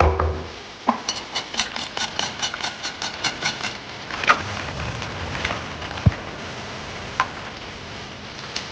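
Tableware and eating noises: a thump, then a quick run of about fourteen light clicks, about five a second, then a few scattered sharp knocks.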